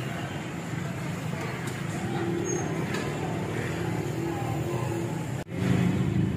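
Steady low rumble of a busy street with faint voices in the background; the sound drops out for an instant about five seconds in and comes back slightly louder.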